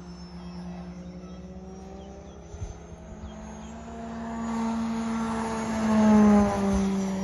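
Propeller hum of a large electric aerobatic RC plane, an Extreme Flight 104" Laser EXP V2 turning a 28x13 Falcon prop on a StinGR electric motor, with no engine note, only the steady buzz of the blades. It swells as the plane comes in low, is loudest about six seconds in, then drops in pitch as it passes.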